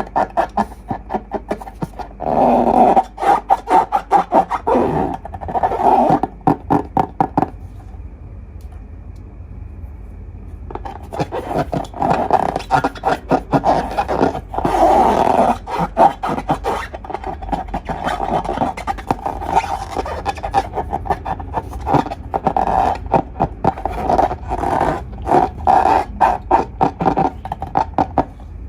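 Long rubber balloons being squeezed and rubbed, squeaking in runs of rapid crackling chatter, with a quieter stretch about a third of the way through.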